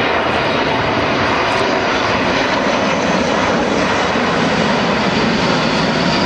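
Boeing C-17 Globemaster III's four Pratt & Whitney F117 turbofan engines running as the transport passes low overhead: a steady, loud jet rush with a faint high whine.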